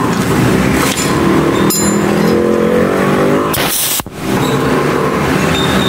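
A short, loud hiss of compressed air vented from a high-pressure airgun fitting, lasting about half a second and cutting off sharply about four seconds in. A steady engine-like drone runs underneath throughout.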